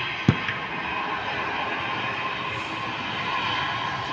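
Jet engines of a GoAir Airbus A320-family airliner running on the runway at a distance, a steady rushing noise. A single sharp click about a third of a second in.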